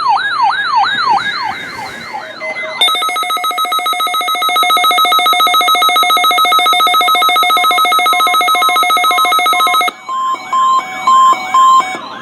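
Electronic siren and alarm tones. A fast yelping siren sweeps up and down about three times a second, then a rapidly pulsing steady alarm tone sounds for about seven seconds. Near the end the siren sweeps return with four short beeps.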